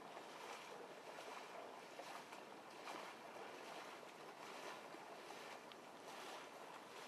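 Faint lapping of small wind-driven waves on a lake shore, with a light wind; soft irregular swells and no distinct events.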